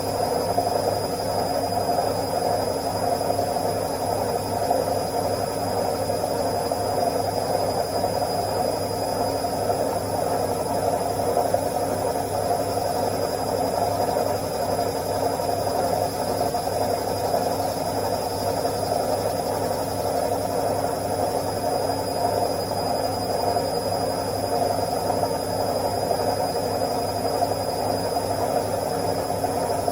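Washing machine on its spin cycle: a steady, even whir of the spinning drum and motor with a low hum and a thin high whine, unchanging throughout.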